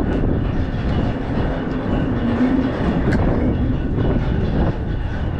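Traffic rumbling across the bridge overhead: a loud, steady rumble with a wavering low hum and a few faint clacks.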